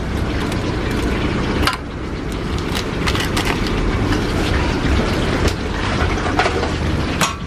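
Metal tongs clicking and scraping against steel serving trays and a foil food tray, a few separate clicks over a steady low rumble.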